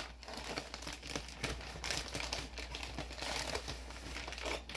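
Brown paper mailer crinkling and rustling in a steady run of small crackles as a book is pulled out of it.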